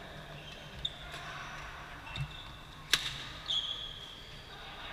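Badminton rally: sharp smacks of rackets striking the shuttlecock, the loudest about three seconds in, with a drawn-out high squeak from court shoes on the floor near the end.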